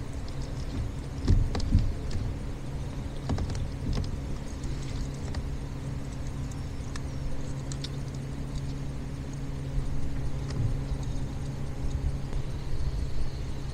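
A steady low motor hum, with a few sharp knocks and clatters in the first four seconds.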